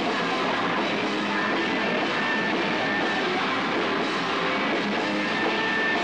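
Rock band playing live and loud, electric guitar and drum kit in a dense, unbroken mix.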